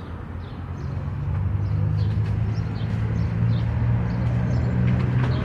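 A motor vehicle's engine running close by: a low, steady hum that grows louder over the first second or so and holds.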